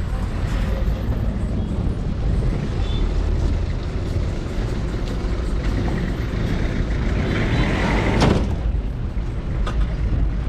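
Road traffic: a steady rumble of vehicles, with one vehicle passing close and loud about eight seconds in.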